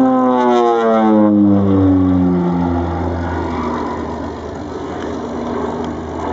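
North American OV-10 Bronco's twin Garrett T76 turboprops passing close by. Their propeller drone falls in pitch over the first three seconds as the aircraft goes past, then settles into a steady, lower drone.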